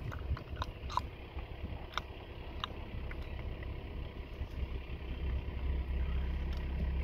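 Car engine running at low speed, a low rumble that grows steadier and louder over the last couple of seconds. A few short, high chirps or clicks sound in the first three seconds.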